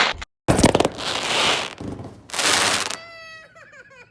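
A consumer firework cake going off: two long, loud crackling bursts, then near the end several whistling effects whose tones waver and fall.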